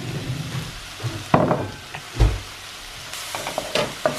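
Chicken, red onion and pepper sizzling in a frying pan while cooked peas are tipped in from a bowl and stirred with a wooden spoon, with a few knocks, the sharpest about a second and a half in.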